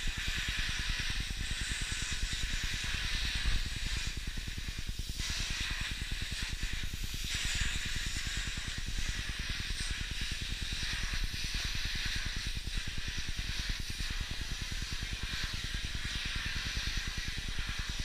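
Vacuum cleaner running with its floor tool on a wooden floor: a steady rushing hiss of air being sucked in, which dips briefly a couple of times as the nozzle moves.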